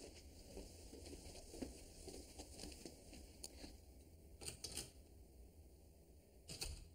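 Near silence: faint room tone with soft rustling and a few brief clicks, the clearest about four and a half seconds in and near the end.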